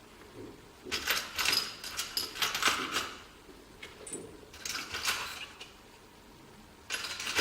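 Small metal screws and parts clinking and rattling as they are rummaged through and handled, in three spells of jangling.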